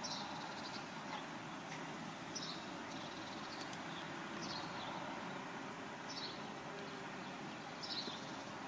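A bird repeating a short, high, falling call about every two seconds, five times in all, over a steady background hiss.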